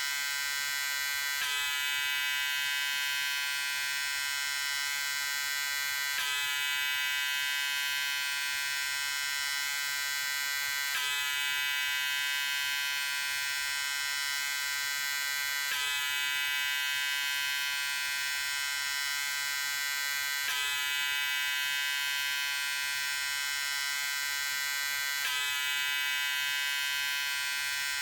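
Electric razor buzzing steadily, with a small hitch about every five seconds where the recording loops.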